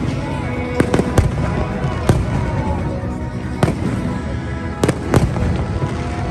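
Aerial fireworks bursting in a display, about six sharp bangs at uneven intervals, over music played loud for the show.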